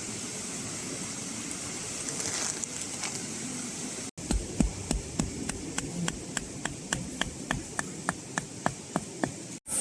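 A steady hiss, then after a brief cut a run of sharp, evenly spaced taps, about four a second, each with a dull thud beneath it.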